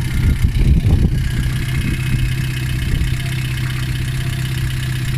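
VAZ 2114's 1.6-litre eight-valve engine idling with a fast, even knock, running with the alternator belt removed; the owner suspects the water pump. It rumbles unevenly for the first second or two, then settles into a steady run.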